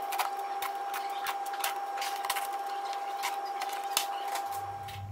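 Plastic engine under tray coming off, its small Torx screws being undone: a steady motor whine with irregular clicks and clatters throughout.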